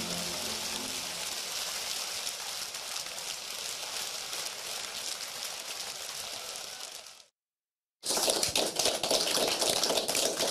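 Audience applause as the song's last notes die away in the first second. The clapping fades out to a moment of complete silence about seven seconds in. Then a closer, crisper round of clapping starts abruptly.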